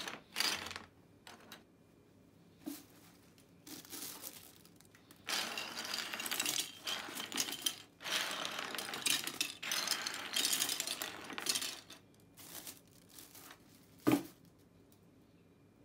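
Small 3D-printed plastic puzzle pieces clattering and rattling as handfuls are swept across a cutting mat and thrown into a waste bin. This comes in several bursts of a second or two, with a single sharp knock near the end.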